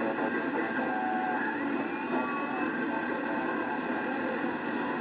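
Static from a Yaesu transceiver's speaker tuned to CB channel 4 (27.005 MHz): a steady hiss with faint, unintelligible signals under it and a brief gliding whistle about two seconds in.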